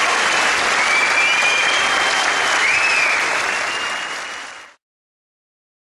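Concert hall audience applauding, with a few whistles. The applause fades and cuts off abruptly a little before the end.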